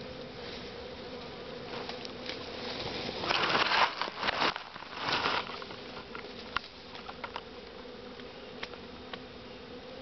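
A honeybee swarm buzzing in a steady hum. About three to five seconds in, loud rustling and crackling of leaves and branches breaks over it, then a few light snaps.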